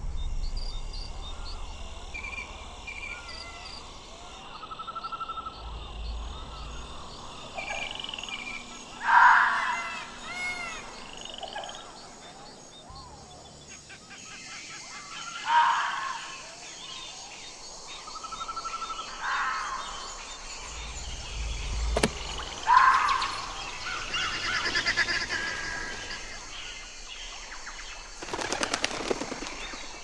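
Fox calls: a few loud, short, harsh cries several seconds apart, each falling in pitch, with birds chirping faintly between them.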